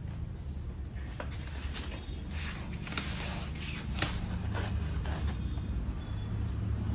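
Rustling and scraping of a foam wrapping sheet and cardboard box as an acrylic name plate is slid out, with a few light clicks and knocks, most busy in the middle. A steady low hum runs underneath.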